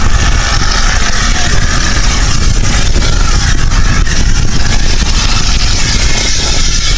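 Compressed gas hissing steadily from a cylinder valve through a hose into an inflating weather balloon, over a low rumble.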